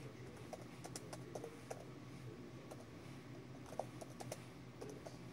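Slow, faint typing on a computer keyboard: a dozen or so scattered key clicks as a phrase is typed into a text box, over a low steady hum.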